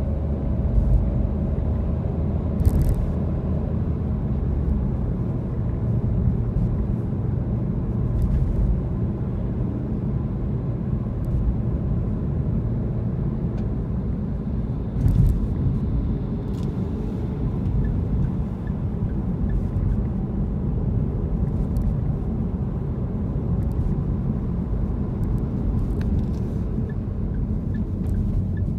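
Steady low rumble of a car's engine and tyres on the road, heard from inside the moving car's cabin. A few brief knocks sound over it, the loudest about halfway through.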